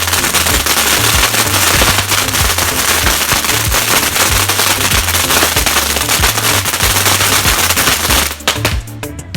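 A string of firecrackers going off in a dense, continuous crackle of rapid pops, cutting off about eight seconds in, over background music with a steady bass line.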